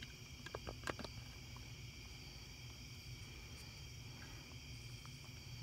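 Steady chorus of night insects trilling, several high tones held throughout, with a few faint clicks and rustles about a second in.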